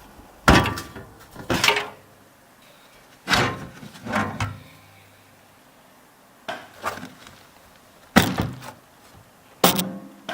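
A series of sharp knocks and clunks, about eight in ten seconds and unevenly spaced, each ringing briefly: computer parts being handled and fitted during a PC build.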